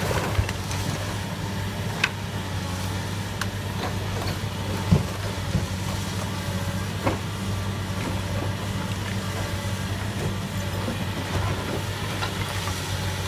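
Caterpillar crawler excavator's diesel engine running steadily under load while its demolition grab tears into a house's brick and timber walls, with scattered sharp cracks and knocks of breaking, falling debris, the loudest about five seconds in.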